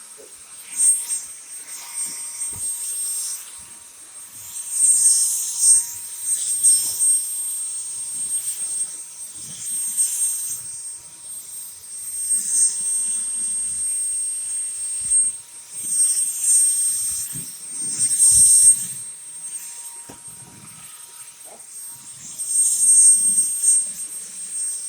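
Dyson V10 cordless stick vacuum running, a steady high-pitched whine with a rushing hiss that swells and fades every few seconds, with scattered faint knocks.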